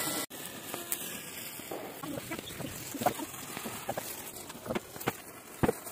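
Hand-held sparkler stick burning with a steady fizzing hiss and scattered small crackles, with a couple of sharper pops near the end.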